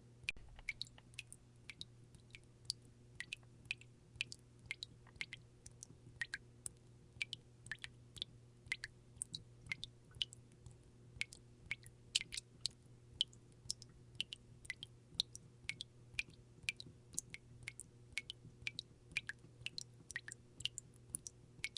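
Water drops falling from a dripping faucet: quick wet plinks, about three or four a second at uneven spacing, each with a short bright ring.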